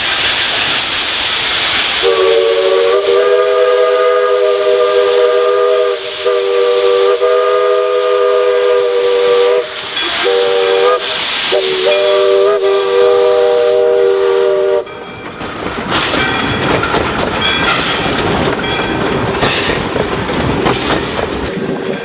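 Northern Pacific No. 924 steam locomotive blowing its chime whistle after a brief hiss of steam: four blasts, long, long, short, long, the grade-crossing signal. The locomotive then passes close by with rhythmic clatter over the rails.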